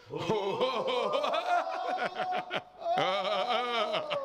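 A group of men laughing and chanting in short broken calls, then holding a long wavering 'oh' about three seconds in.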